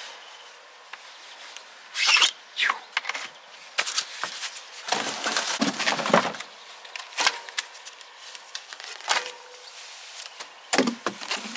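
Cardboard packaging being pulled off and handled: a run of irregular scraping, rustling and tearing bursts, loudest about two seconds in and in a longer stretch around the middle.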